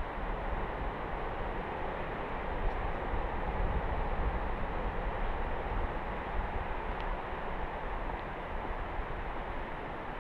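Sea waves washing on the shore: a continuous rushing noise with a low rumble underneath, swelling slightly in the middle.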